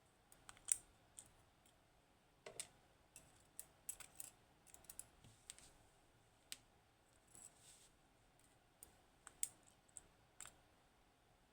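Irregular small, sharp clicks and ticks of tiny lock pins and metal tools being handled and set down while a Securemme K2 dimple lock is taken apart.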